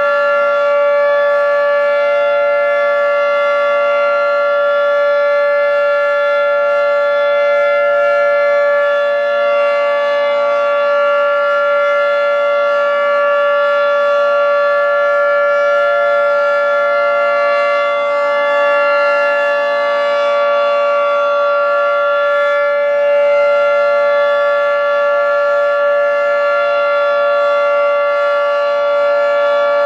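Federal Signal 2T22 dual-tone outdoor warning siren sounding the steady alert signal: a loud two-tone chord held at a constant pitch, without wailing.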